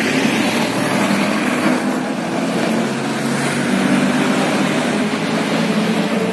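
Road traffic passing close by: a steady wash of engine and tyre noise from cars and trucks.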